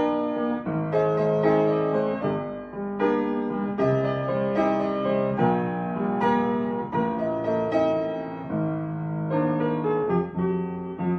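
Piano music: sustained chords struck about once a second, each fading before the next.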